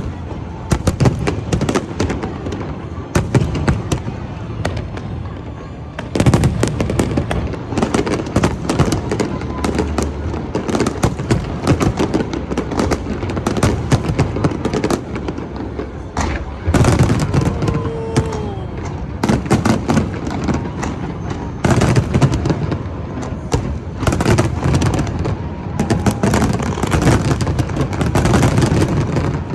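A fireworks display going off continuously: a dense run of bangs and crackling bursts, some heavy and low, with no real pause.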